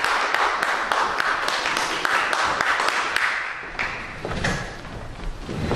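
Audience applauding, dying away about four seconds in, followed by a few low thumps.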